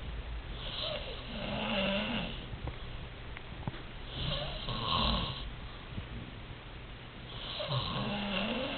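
Snoring: three long snores, about one every three and a half seconds.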